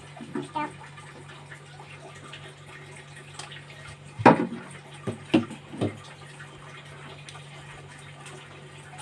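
A young child's short voice sounds, a few brief calls, the loudest about four seconds in, over a steady low hum.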